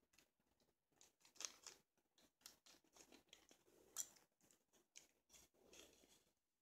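Faint, irregular clicks and scrapes of a spoon stirring glitter in a plastic bowl, the sharpest about a second and a half in and again about four seconds in.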